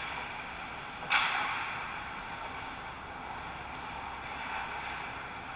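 Ice hockey rink sound during play: a steady hiss of skate blades on the ice, with a sudden louder scrape about a second in that fades over the next second.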